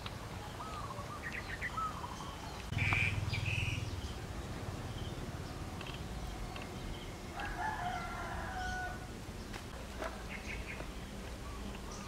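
A rooster crowing once, about seven seconds in, among scattered short chirps of small birds. A brief louder rumble with a high squeak about three seconds in.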